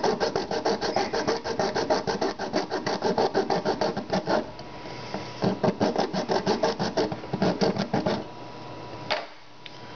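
Hacksaw cutting through the plastic housing of a Sawyer water filter in quick, even back-and-forth strokes that rasp. The strokes pause briefly about four seconds in, resume, and stop about eight seconds in, with one more stroke near the end.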